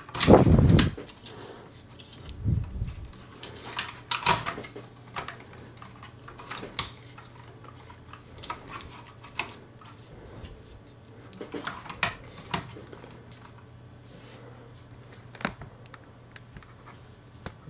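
Plastic toy-stand parts being handled on a tabletop: a dull thump in the first second, then scattered sharp clicks and taps, over a faint steady hum.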